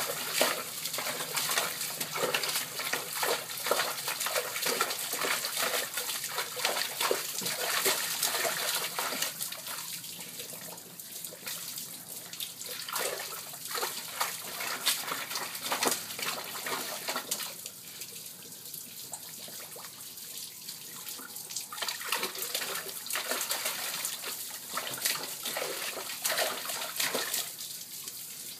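A German Shorthaired Pointer's front paws slapping and splashing water in a shallow plastic tub as it paws at a floating tennis ball. The splashing is irregular, with a couple of quieter stretches.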